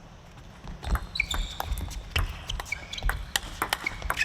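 Table tennis rally: the celluloid ball clicking sharply off rackets and table in quick, irregular succession, starting about a second in, with a few short shoe squeaks on the court floor.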